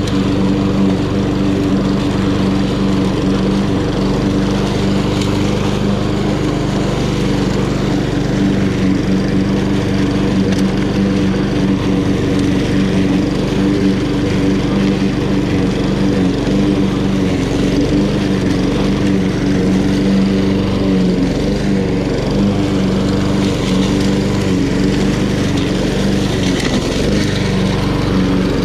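Honda GCV170 single-cylinder four-stroke engine on a walk-behind lawn mower running steadily at working speed.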